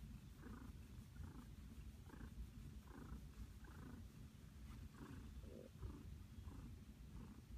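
Domestic cat purring contentedly: a soft, low rumble that swells with each breath, a little more often than once a second.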